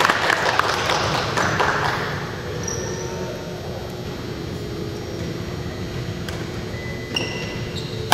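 Badminton play on a gym floor: a flurry of sharp racket-and-shuttlecock hits and footfalls in the first two seconds, then reverberant hall background noise with a few short, high sneaker squeaks, and a sharp hit just after seven seconds followed by a loud smash at the very end.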